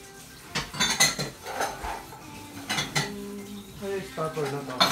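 A series of sharp clicks and knocks on hard surfaces, several close together in the first second and more near the end.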